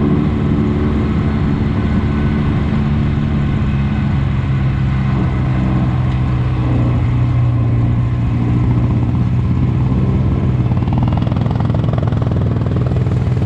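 Polaris RZR side-by-side engine running steadily at a fairly constant low engine speed.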